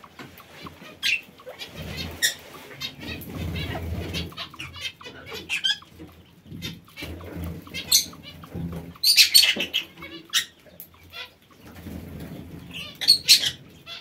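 Aviary birds chirping: many short, high chirps, loudest a little past the middle and again near the end, over a low rustling from quail moving and pecking in wood-shaving litter.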